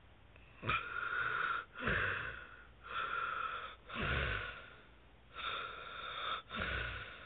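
Sleeping man snoring: wheezing, whistling breaths in and out, some with a low rattle, about three breath cycles of roughly a second per breath.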